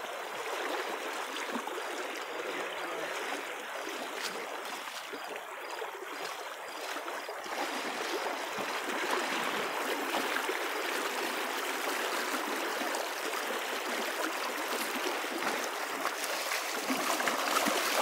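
Shallow river running over a stony bed: a steady rush of water, a little louder in the second half.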